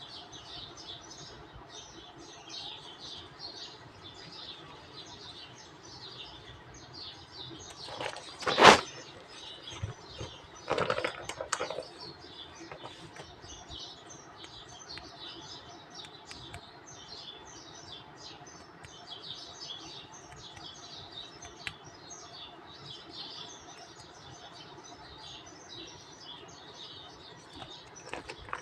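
Small birds chirping steadily in the background, a dense run of short high chirps. Under it come handling noises: one loud sharp rustle about nine seconds in and a shorter cluster of rustling around eleven seconds.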